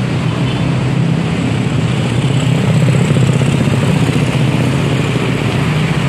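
Steady street traffic noise: a continuous engine rumble from passing motor vehicles.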